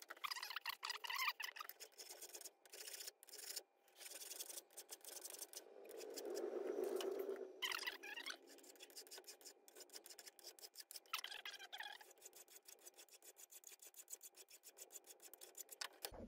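Hand file scraping the inside faces of a metal model-engine crankshaft's webs held in a bench vise, in a few short bursts of strokes. The sound is faint and thin, with no low end, among many short sharp clicks.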